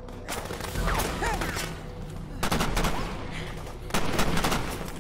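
Rifle gunfire in a film firefight: several bursts of shots in quick succession, with a dense volley about halfway through and another near the end.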